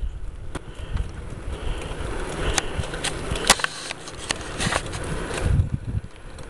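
Riding a bicycle with the recording phone in hand: wind buffets the microphone in a steady low rumble, with repeated clicks and rattles from the bike and the handled phone, one sharp click about three and a half seconds in.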